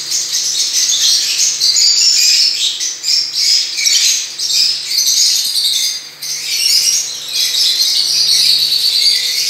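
A flock of zebra finches calling in an aviary: a dense, continuous chatter of many short overlapping calls.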